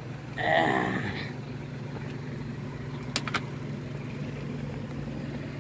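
Bicycle being parked: a short high squeal about half a second in, then two sharp clicks about three seconds in, over a steady low hum.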